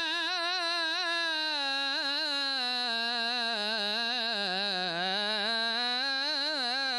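A man's solo voice singing Islamic madih, praise of the Prophet Muhammad, holding one long vowel through quick melismatic turns. The line sinks steadily lower in the middle and climbs partway back near the end.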